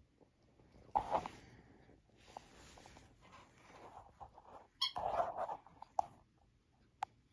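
Yorkshire terrier puppy giving short play barks and yips in several separate bursts, about a second in and again around five and six seconds in, with scuffling between.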